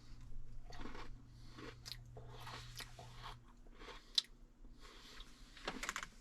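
A person biting into and chewing an Oreo sandwich cookie: irregular crunches close to the microphone, with a sharp click about four seconds in.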